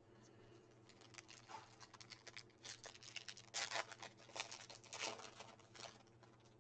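Topps Holiday baseball cards being flipped and slid against one another while shuffling through a stack. It comes as a quick run of papery rustles and clicks, busiest around the middle.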